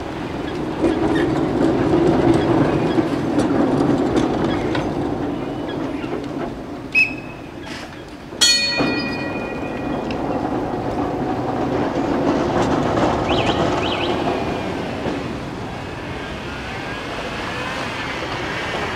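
A vintage electric tram passing over a level crossing: a steady rumble of its wheels on the rails, with two short bright rings, the louder about eight and a half seconds in.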